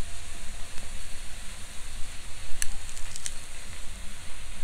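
Slices of top blade beef with asparagus and garlic sizzling steadily on a small tabletop grill, with a couple of light clicks midway.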